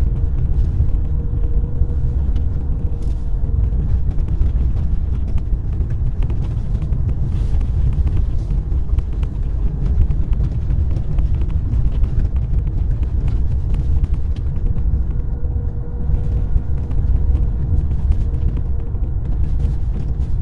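Car driving on a snow-covered road: a steady low rumble of tyres and engine, with faint scattered crackles from the tyres on the snow.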